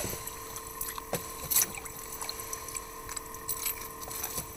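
Water sloshing and dripping in an ice-fishing hole as a small whitefish is lifted up through it, with a few light clicks and a faint steady hum underneath.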